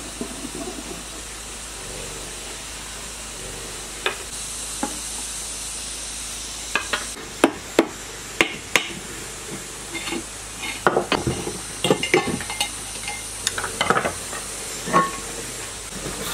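Hammer knocking on an old generator's metal end cover to free it: a few sharp knocks, louder ones between about seven and nine seconds, then a run of metal clattering and scraping as the cover works loose, over a steady hiss.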